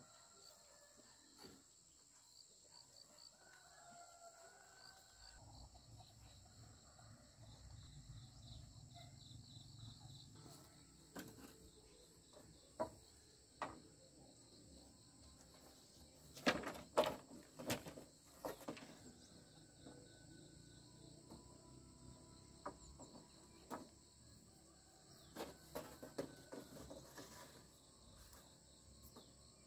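A steady, high-pitched insect chorus, with scattered sharp knocks and taps over it. The loudest knocks come in a quick cluster about halfway through and in another cluster near the end.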